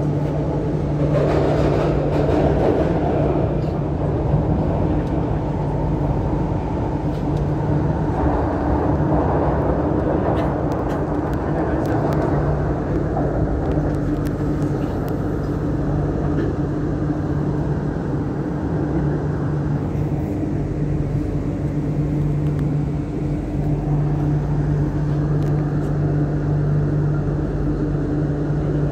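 MTR Kwun Tong Line Q-Train heard from inside a car while running: a steady rumble of wheels on track with a constant low hum.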